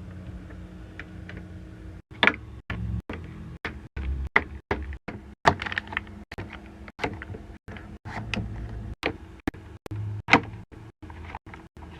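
Plastic and glass skincare containers clicking and clacking as they are handled and set into a mini skincare fridge, a few sharp knocks a second, over a steady low hum.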